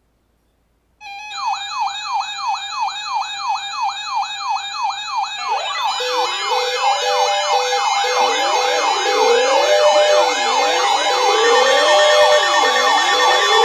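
Electronic siren sounds: after a second of silence, a fast yelp sweeps up and down about five times a second. From about five seconds in, slower wailing siren tones and further layers join it, and the sound builds in level.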